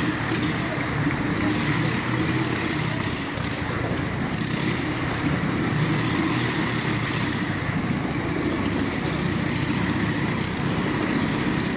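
Motorcycle engine running steadily at speed as it circles the vertical wooden wall of a Wall of Death drum.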